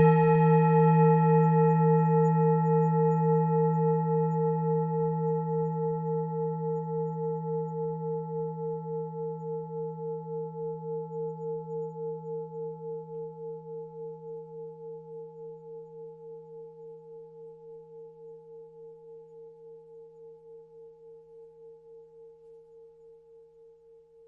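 Tibetan singing bowl ringing out after a single strike. Its tones pulse with an even wobble and fade gradually to almost nothing over about twenty seconds.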